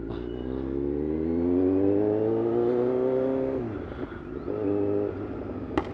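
Motorcycle engine with an aftermarket exhaust accelerating: its pitch climbs steadily for about three and a half seconds, drops off sharply at a gear change, then runs steady near the end.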